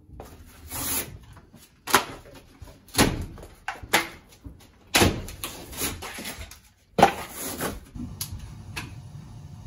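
Knocks and scraping of old plaster and wall board being pulled and knocked off a wall by hand during demolition, roughly once a second, some with a short scrape or crumble after the knock. The knocks stop about 8 s in, leaving a low steady hum.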